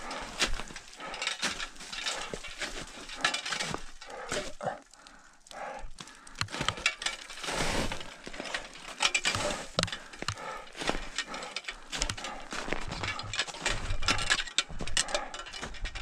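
Climber's crampons and ice axe crunching and scraping on hard snow and ice: an irregular run of sharp crunches and clinks, with a short lull about five seconds in.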